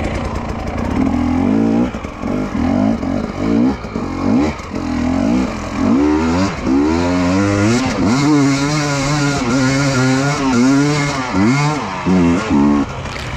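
Enduro motorcycle engine revving up and down as it is ridden hard off-road, the throttle opened and closed about once a second. It then holds high revs with a wavering pitch for several seconds before dropping off near the end.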